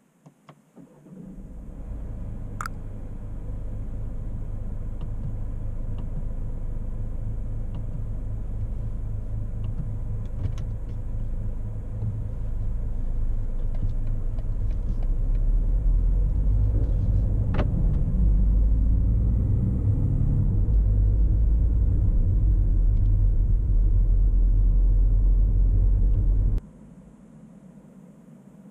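BMW 118d's four-cylinder diesel engine heard from inside the cabin: a few clicks, then the engine starts about a second in and runs with a steady low rumble as the car drives, growing louder from about halfway, with a couple of sharp clicks. The sound cuts off suddenly near the end.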